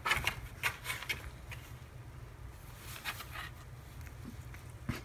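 A small cat moving about inside a cardboard box: her paws and claws scratch and tap on the cardboard in short, scattered rustles, most of them in the first second and a half and again around three seconds in. A low steady hum sits underneath.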